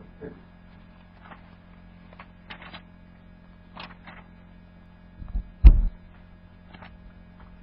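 Steady low electrical hum under a pause in a sermon recording, with a few faint ticks and rustles. A loud low thump, a knock against the microphone or lectern, comes about five and a half seconds in.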